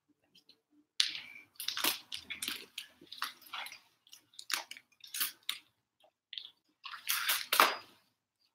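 Handling noise from a covered camera being moved about: irregular rustling, scraping and knocking on the microphone, loudest about a second in and near the end.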